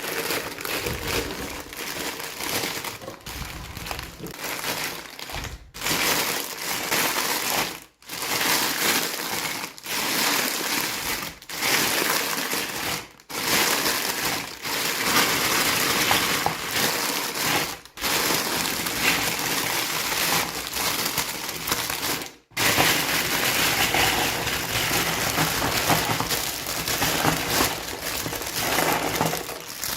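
Packaging crinkling and rustling as it is handled and torn open, a loud continuous crackle broken by a few abrupt brief drop-outs.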